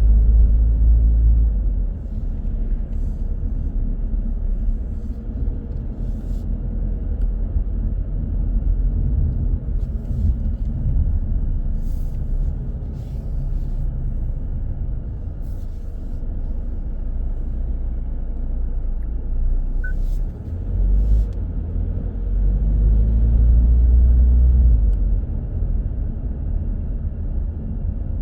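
Car driving through city traffic: a steady low rumble of engine and road noise that swells louder near the start and again about three-quarters of the way through, with a few faint clicks.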